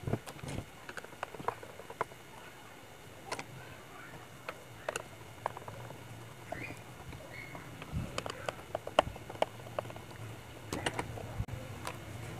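Screwdriver working out the screws of a Kada 1250G gas compressor's plastic housing, with the housing handled on the bench: scattered small clicks and light knocks, busiest around eight to nine seconds in.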